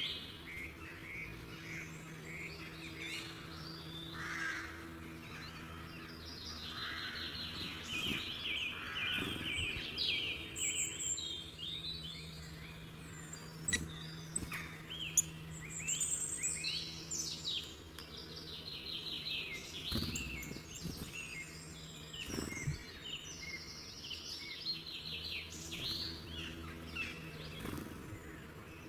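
Songbirds chirping and singing, with many overlapping short calls and rapid trills, over a faint steady low hum. A few sharp clicks stand out.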